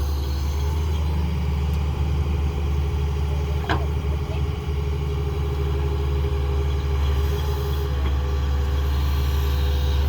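Heavy diesel engine of a Tata Hitachi excavator running steadily, with one short sharp sound about four seconds in.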